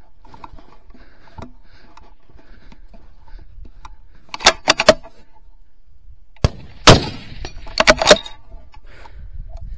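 A single loud rifle shot about two-thirds of the way through, ringing out briefly. Quick sharp metallic clicks of the rifle's action being worked come in a cluster of three a couple of seconds before it and again just after it.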